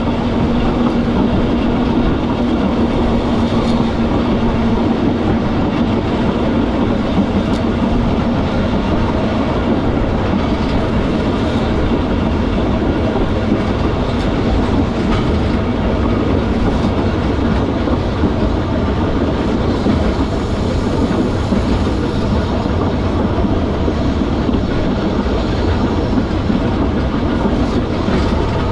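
Manx Electric Railway vintage electric tramcar running along its narrow-gauge line, heard from aboard as a steady noise of wheels on rail. A low hum sounds over the first few seconds and fades away.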